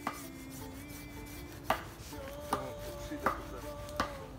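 A tool striking wood: five sharp knocks, the later ones coming about one every 0.8 seconds.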